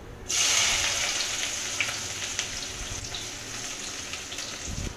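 Chopped onions tipped into hot oil in a kadai, sizzling. The sizzle starts suddenly about a third of a second in, loudest at first, then slowly dies down.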